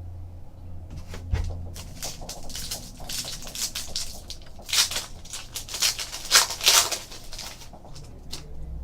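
Trading cards being handled and sorted, a run of short scraping swishes as cards slide against each other, loudest about five to seven seconds in, over a steady low hum.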